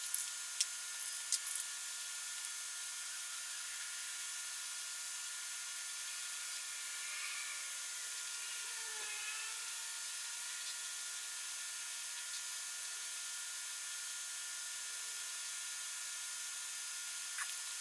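Aerosol spray can hissing steadily as paint is sprayed. A few short clicks come in the first couple of seconds and again near the end.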